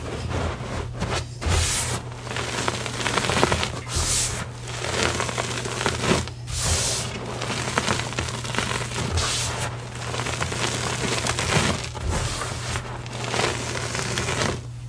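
Hands squeezing and crushing soft reformed gym chalk powder, a continuous crunching and crumbling with several louder crisp crunches along the way.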